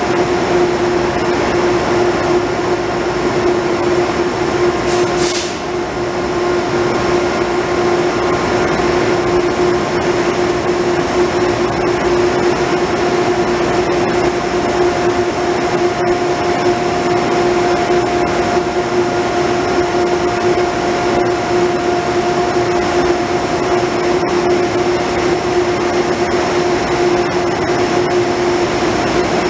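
Steady, loud machinery drone of an underground railway station's track level, with a constant hum. A short hiss comes about five seconds in.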